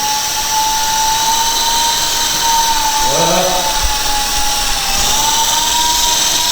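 Small toy RC helicopter's electric motor and rotor whining steadily at a high pitch, the tone wavering and rising a little near the end as the throttle changes.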